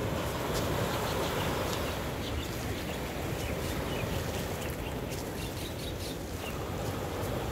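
Steady rushing of surf and wind, with small birds chirping faintly now and then through the middle.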